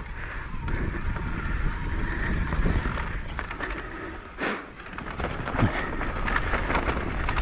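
Downhill mountain bike riding fast down a dirt trail: tyres rolling and crunching over loose dirt and stones, with scattered clicks and rattles from the bike over bumps and one sharper knock about four and a half seconds in. Wind rumbles steadily on the microphone throughout.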